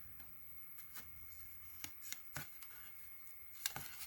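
Faint handling of a paper postcard and the small items in the mail, with light rustling and a few short, sharp clicks.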